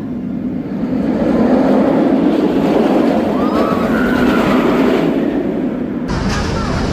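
Kumba steel roller coaster running on its track, a loud steady rumble that swells about a second in, turning brighter with clattering near the end.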